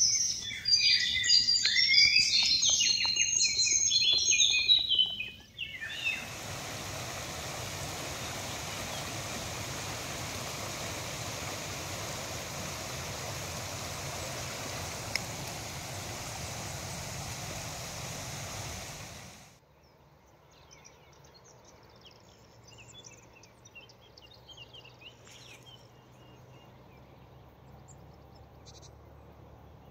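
Loud, busy songbird singing for about five seconds. Then a small brook running over stones gives a steady hiss for about thirteen seconds. This cuts off abruptly, leaving faint, scattered bird calls.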